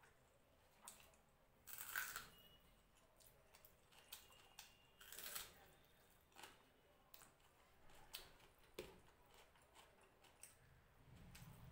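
Faint eating sounds: fingers mashing and mixing rice on a plate, and chewing, heard as scattered soft clicks and rustles, the loudest about two seconds in and again around five seconds.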